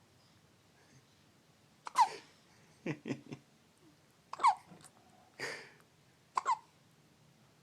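A baby hiccuping: three sharp, squeaky hics about two seconds apart, each dropping in pitch. Softer clicks and a breathy sound come between them.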